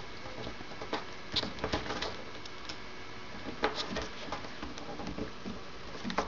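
A sheet of printer paper being folded and creased by hand on a table: scattered soft rustles and crisp little ticks of the paper over a low steady hiss.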